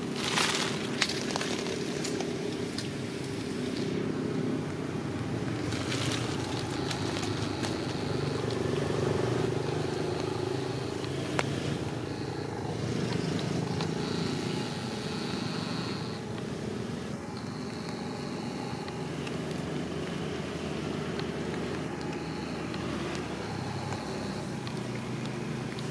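A steady low hum like a running motor vehicle engine. From about seven seconds in, a thin high tone comes and goes in spells of one to two seconds, and there are a few sharp clicks near the start.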